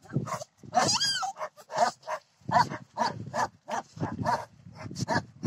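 Small puppies grunting and growling in quick short bursts as they tussle, with one high squealing whine about a second in.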